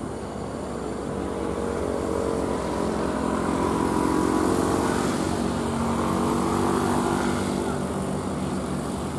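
Diesel engine of a heavy truck labouring up a steep climb, growing louder toward the middle, its note rising and shifting as it works, then easing slightly near the end.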